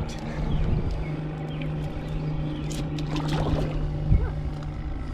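Boat motor running steadily at trolling speed with a low, even hum. A few knocks come from handling in the boat, and a single sharp thump sounds about four seconds in.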